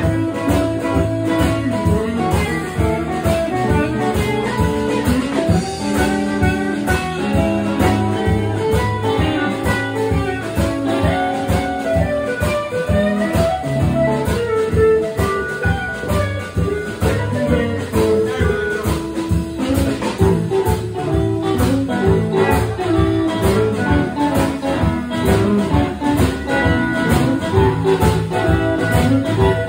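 Live band playing blues, with guitars to the fore over a steady beat.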